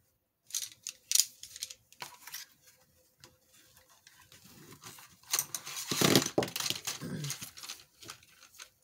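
Pencils and their plastic packaging being handled: scattered clicks and taps, then a burst of crinkling packaging about five to six seconds in.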